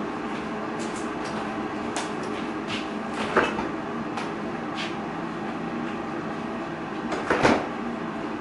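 Air fryer running steadily with its fan whirring while it roasts. A few short knocks and clatters break in, the loudest about a third of the way in and again near the end.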